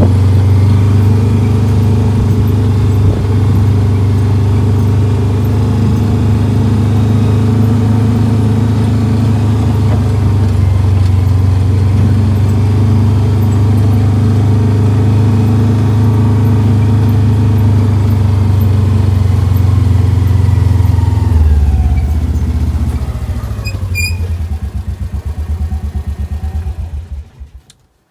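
Mastercraft planer's electric motor running at steady speed, then switched off about three-quarters of the way through and winding down over several seconds.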